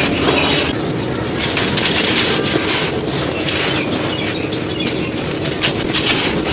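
Dry moulded black sand shapes crunching and crumbling, a steady dense crackle of many small grainy cracks.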